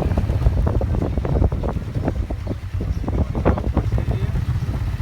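Wind buffeting the microphone on a moving motorbike: a heavy, uneven low rumble with rapid irregular crackles, the bike running underneath.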